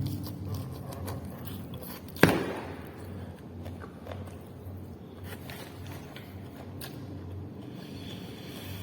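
Someone eating a chicken meal: small clicks and handling noises of the food, with one sharp knock about two seconds in.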